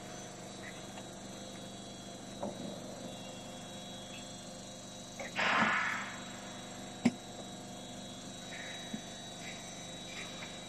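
Chicken breast dicing machine running: a steady motor hum with faint high steady tones. About halfway through comes a short rush of hiss, then a sharp click a second later, with a few lighter clicks scattered around.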